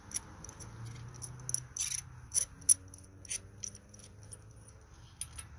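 Light, irregular metallic clicks and rattles from a spark plug socket and extension as a spark plug is spun out of the cylinder head by hand.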